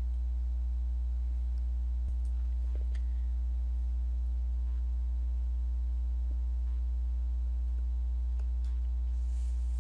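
Steady low electrical hum with a ladder of evenly spaced overtones, unchanging throughout, typical of mains hum picked up in a microphone's recording chain. A few faint clicks come about two to three seconds in.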